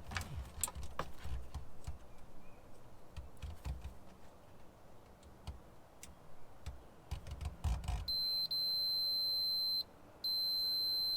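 Digital multimeter's continuity beeper giving a steady high-pitched beep twice, first for nearly two seconds and then again for about a second after a brief break, as the probes bridge a fuse: the fuse has continuity. Light clicks and rustling of the probes being handled come before the beeps.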